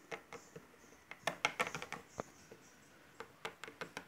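Light clicks and taps of small plastic toy pet figures being handled and set down on a tabletop, in a couple of quick clusters.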